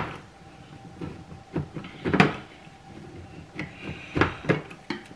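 Manual handheld can opener being cranked around the rim of a metal food can, making a handful of short metallic clicks and clunks at irregular intervals as the cutting wheel bites and the key is turned.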